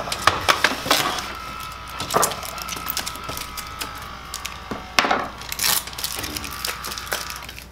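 Kyocera FS-4200/4300 laser printer going through its start-up cycle after power-on, with a newly replaced fusing unit: a steady motor whine under many clicks, with louder knocks about two seconds and five seconds in.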